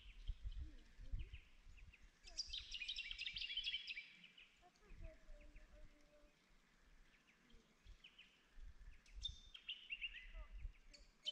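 Birds calling and chirping in a rapid, chattering chorus, loudest about two to four seconds in and again near the end, over faint low thuds.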